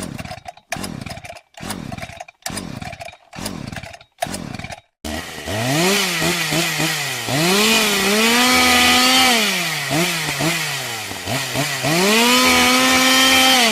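Chainsaw engine being pull-started, with several short falling tugs that don't catch, then catching about five seconds in. It then revs up and down and is held at high revs twice.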